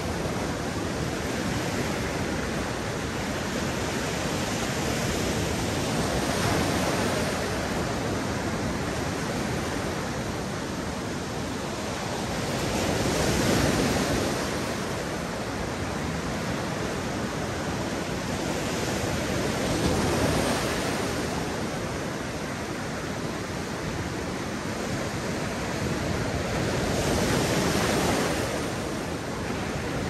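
Sea waves washing onto a beach: a steady hiss of surf that swells as a wave breaks, four times, about every seven seconds.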